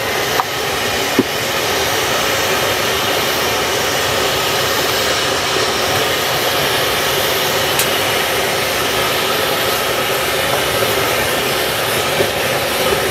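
Freshly cut potato strips dropped into a wok of hot oil for deep-frying, setting off a loud, steady frying sizzle that swells about half a second in and then holds.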